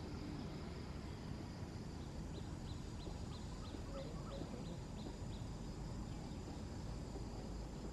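Outdoor background with a steady low rumble. About two seconds in, a bird gives a quick run of about a dozen short, high, falling chirps, roughly three a second, that stops near the middle.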